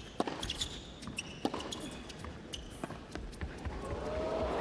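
Tennis ball being struck back and forth in a rally on an indoor court, a sharp hit about every second and a quarter. Crowd noise swells steadily near the end as the point finishes.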